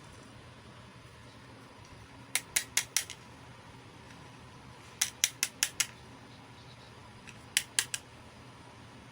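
Small hard plastic toy pieces clicking and tapping together in three quick runs of sharp clicks, four or five at a time, about two, five and seven and a half seconds in.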